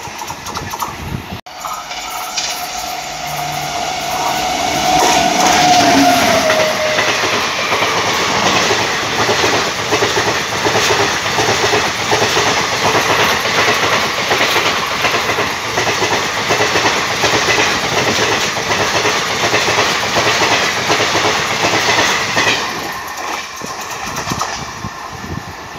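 Indian Railways express train passing at speed close by: a horn sounds early on and drops in pitch about six seconds in as the locomotive goes by, then a long, steady rush and clickety-clack of the coaches' wheels over the rails, fading near the end.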